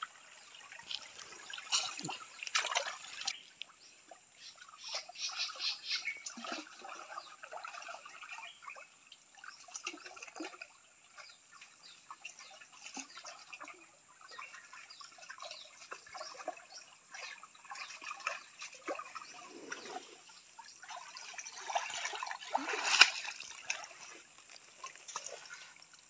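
Stream water splashing and trickling around someone wading with a hand net: irregular splashes, with one louder splash near the end.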